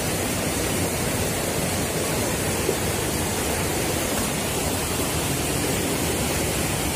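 Fast-flowing river rushing steadily, an even, unbroken wash of water noise.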